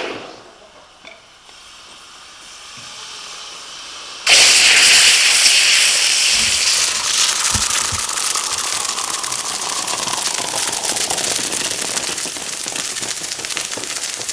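Hot aluminum ingot bars, still in their mold, quenched in water: a sudden loud sizzling and crackling of boiling water and steam begins about four seconds in and slowly eases off.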